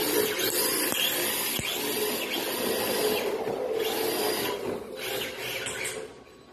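Electric motor of a 1/10-scale MST RMX 2.0 RC drift car whining as it drives, with its hard tyres scrubbing on tile. The sound falls away sharply near the end as the car moves off.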